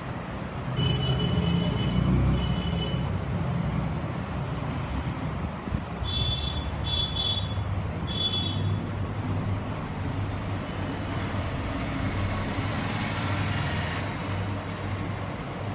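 Road traffic rumbling steadily, with two short high-pitched tones about a second in and three more midway.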